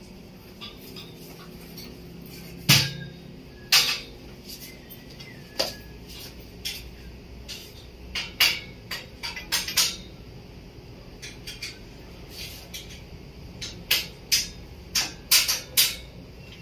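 Hammer tapping a stainless steel window grill and its bracket into place: a string of sharp knocks at uneven intervals, coming faster in the second half.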